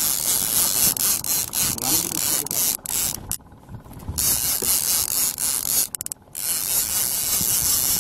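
Fishing reel ratchet clicking as the reel is worked on the rod, over a steady hiss. The sound cuts out briefly twice in the middle.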